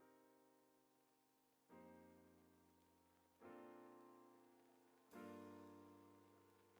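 Quiet piano music: a chord struck about every second and a half to two seconds, each ringing out and fading, each a little louder than the last.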